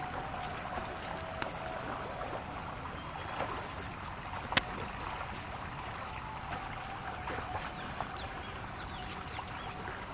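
Canal water current flowing steadily. Faint high chirps recur throughout, and there is a single sharp click about four and a half seconds in.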